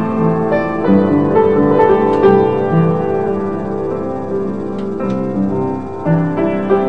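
Instrumental background music: a melody of separate notes that change every fraction of a second, with no singing.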